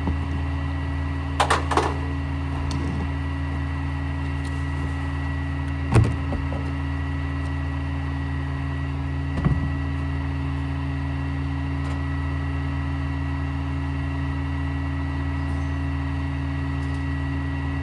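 Rear-loader garbage truck idling steadily while trash cans are tipped into its hopper by hand, with sharp knocks of the cans against the hopper: a double knock about a second and a half in, the loudest about six seconds in, and another near ten seconds.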